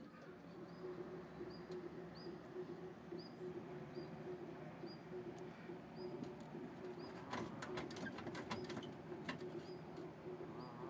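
Small homemade car rolling over a gravel road: a steady low hum with a short high squeak repeating about every two-thirds of a second, and a spell of crunching clicks about seven to nine seconds in.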